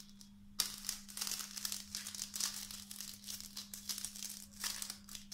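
Thin clear plastic sheet crinkling and rustling as it is folded and twisted by hand around a candy lollipop, starting about half a second in, over a low steady hum.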